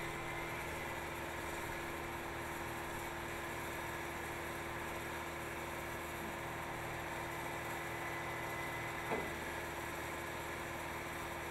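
Heavy tire-processing machinery running steadily at one even pitch, the steady hum of an engine-driven power unit, with a single short knock about nine seconds in.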